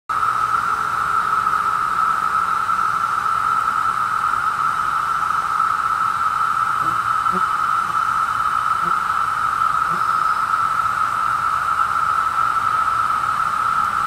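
Chorus of periodical cicadas (Magicicada) droning steadily on one pitch without a break.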